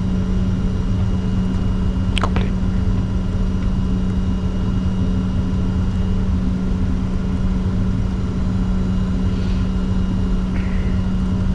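Steady cockpit noise of a Bombardier Challenger 604 taxiing after landing: a low rumble under a constant hum, with a single click about two seconds in.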